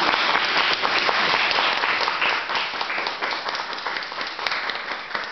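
Audience applauding: many hands clapping in a dense patter that thins a little toward the end.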